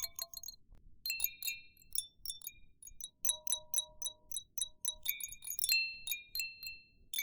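Baby chime toy jingling: quick clusters of light strikes, each leaving a few bright bell-like tones ringing briefly, with short pauses between the clusters.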